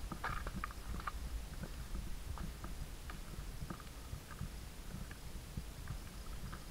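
Hiking footsteps on a rocky trail: boots scuffing and knocking on loose stones in an irregular walking rhythm, over a steady low rumble.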